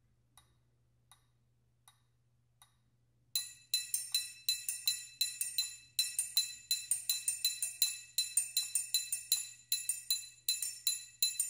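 Four faint, evenly spaced metronome clicks, then from about three seconds in a symphonic triangle played with a metal beater between two sides near the corner: quick articulated strokes in a snare-drum study rhythm, each with a bright, high ring.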